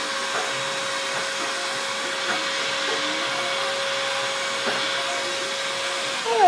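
Steady whirring machine noise with a steady hum. Right at the end a short, loud sound falling in pitch cuts in.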